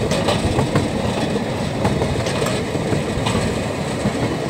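Steel wheels of a rake of small narrow-gauge slate wagons rumbling and clattering along the rails, a steady metal-on-metal rumble with scattered sharp clicks.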